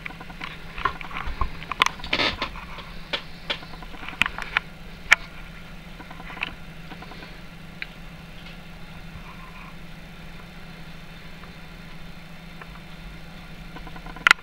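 Miniature single-cylinder solenoid engine clicking and ticking irregularly over a steady low hum, the clicks thinning out after about five seconds; a sharper click right at the end.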